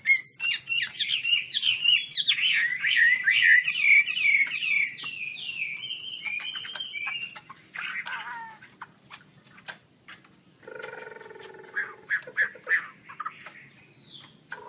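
Chinese hwamei (melodious laughingthrush) singing a fast run of loud, varied whistled phrases for about seven seconds, with sharp clicks scattered through. Near the end there comes a shorter, lower call with a steady buzzy tone and quick pulses.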